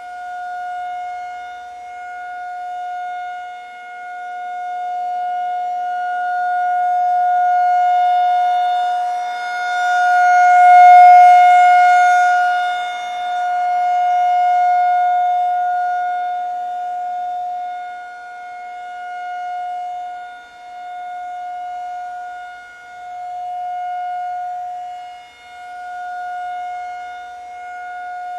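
Outdoor tornado warning siren sounding a steady, unchanging pitch with a lower second tone beneath it. Its loudness swells and fades again and again, loudest about eleven seconds in.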